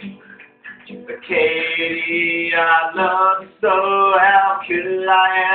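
A man singing long held, wordless-sounding notes over a strummed acoustic guitar; the first second is guitar strums alone before the voice comes in.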